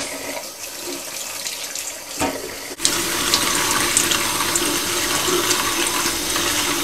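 Kitchen tap running, water splashing onto chestnut mushrooms in a perforated metal colander as they are rinsed. The splashing gets louder about three seconds in.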